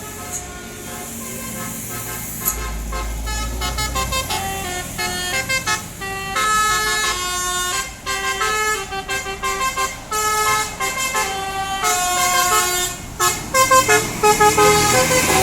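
Bus telolet horn playing a tune: a quick run of short, stepped multi-tone horn notes, starting a couple of seconds in and running on.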